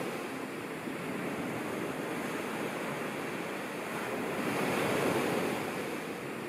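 Small lake waves breaking and washing up on a sandy, pebbly shore in a steady rushing wash, swelling a little about five seconds in.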